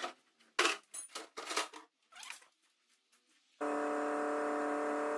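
A few sharp metallic knocks and clatter as the metal seat-box panel of a Land Rover Series 1 is handled and lifted out. About three and a half seconds in, background music starts with steady held chords.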